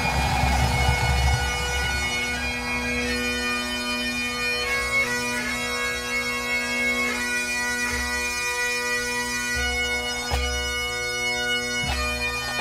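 A full pipe band of Great Highland bagpipes playing a slow melody with long held notes over their steady drones, with a few low drum beats toward the end.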